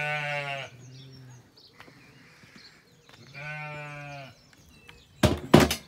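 Zwartbles sheep bleating: two long bleats, one at the start and another about three and a half seconds in. A brief loud noise follows near the end.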